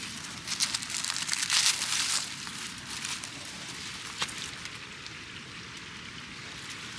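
Dry leaf litter and plant leaves rustling and crinkling as they are handled, loudest in the first two seconds, with a single sharp click about four seconds in while folding scissors are brought to a plant stem.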